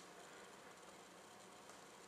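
Near silence: faint steady room tone.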